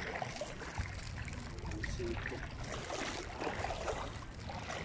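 Shallow seawater sloshing and lapping as someone wades through it, over a steady low rumble.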